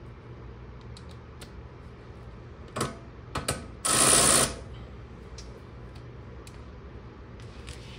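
A tool ratcheting in short bursts of fast clicking: a brief burst about three seconds in, two more quick ones, then a longer, loudest burst of well under a second.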